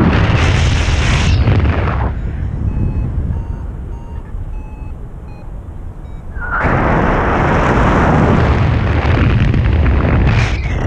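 Airflow buffeting the microphone of an action camera held out in flight, a loud, rough rushing noise that eases for a few seconds in the middle and then comes back as strong as before.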